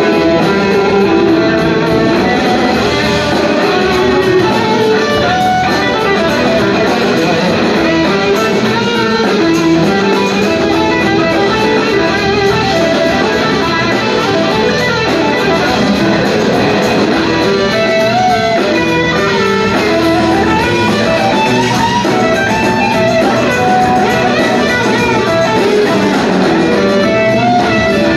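Live blues-rock band playing an instrumental stretch: electric guitars playing over drums and bass, steady and loud throughout.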